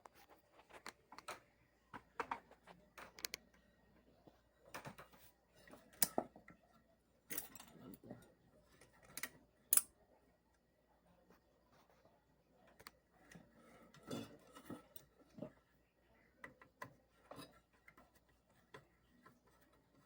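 Scattered light clicks, taps and rustles of hands handling a ceiling fan's opened housing and the wiring around its capacitor, with a few sharper clicks about six, seven and ten seconds in.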